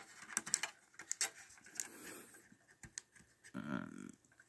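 Fingers working an internal display cable's connector loose inside an opened monitor: faint scattered clicks and scraping handling noise, with a brief muffled low sound about three and a half seconds in.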